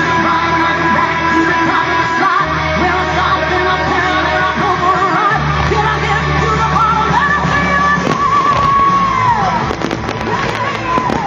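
Loud rock music with singing over held bass notes that change every few seconds, and a falling pitch glide about nine seconds in.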